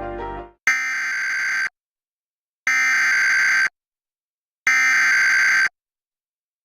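Emergency Alert System SAME header: three one-second bursts of harsh, buzzing digital data tones, two seconds apart, the coded message that opens an EAS alert.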